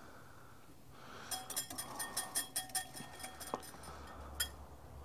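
Wire whisk beating an olive oil and mustard dressing in a small glass bowl: quick, rapid clinks of the metal whisk against the glass, with the bowl ringing faintly, starting about a second in and stopping after a couple of seconds; a couple of single clinks follow.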